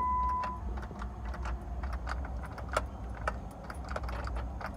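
A steady electronic beep from the 2012 Jeep Wrangler JK cuts off about half a second in. Then come scattered light clicks and jingles of the keys at the ignition, with no cranking: the Jeep has a no-crank, no-start fault.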